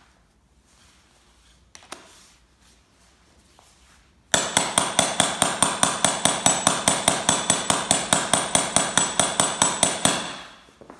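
A hammer striking a metal grommet-setting die in quick, even blows, about six a second, each with a metallic ring. It starts about four seconds in and fades out near the end. The die is flaring a brass grommet through the sailcloth down onto its washer.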